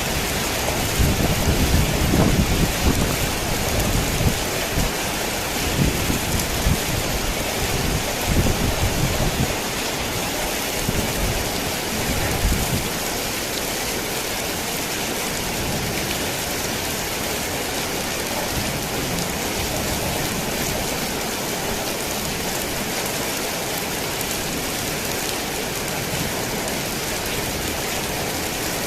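Heavy rain falling on a tin roof in a steady downpour, with thunder rumbling low through the first half that dies away about thirteen seconds in.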